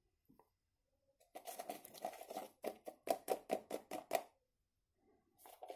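Fingers scraping and pulling cotton wadding out of a small plastic tub, a quick run of short scratchy rubs, about five a second, with a few fainter ones near the end. This is the tub being emptied of cotton so that the diaper's sodium polyacrylate grains are left behind.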